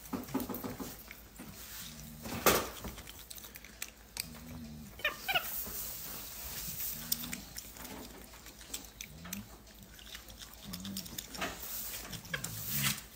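Capuchin monkey eating asparagus: chewing with scattered sharp clicks and crunches, one louder about two and a half seconds in, alongside soft, low animal sounds and a short high chirp about five seconds in.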